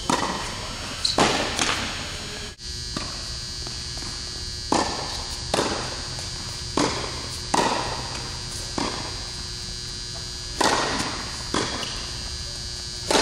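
Tennis balls struck by rackets and bouncing on an indoor hard court: a sharp pop about every second, often in pairs, each with a short echo off the dome, over a steady background hum.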